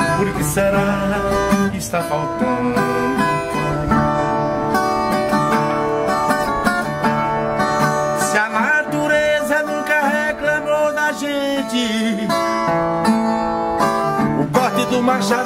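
Background music: a song led by plucked acoustic guitar, playing throughout.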